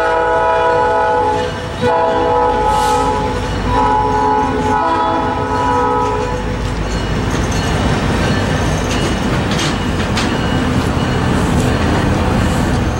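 Diesel locomotive's multi-chime air horn sounding up the line in three blasts, the last the longest, ending about six seconds in. Passenger cars and a caboose roll past on steel wheels with a steady rumble and a few clicks at the rail joints.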